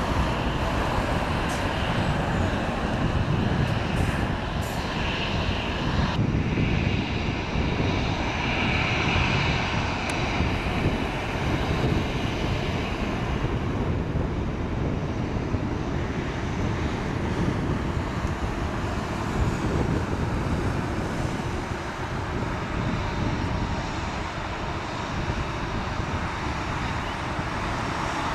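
Airbus A319 airliner's jet engines running as it rolls along the runway after landing: a steady rushing jet noise, with a higher-pitched hiss standing out for several seconds in the first half.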